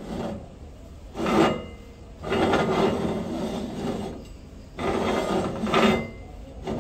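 Threaded brass locking ring of a stainless-steel grinder-type juice mixer being screwed down by hand onto its housing: metal-on-metal grating in several separate turns, the longest about two seconds in the middle.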